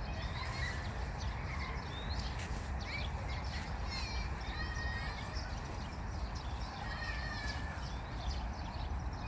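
Several songbirds chirping and warbling in short, quick calls that rise and fall, over a steady low rumble.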